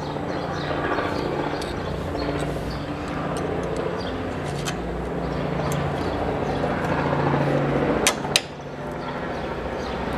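A steady low mechanical hum, with a few sharp metal clicks as a brake-mount bolt is pulled out and refitted; the loudest two clicks come close together a little past the middle.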